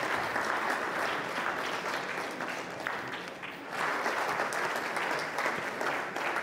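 Audience applauding, easing off briefly about halfway through and then picking up again.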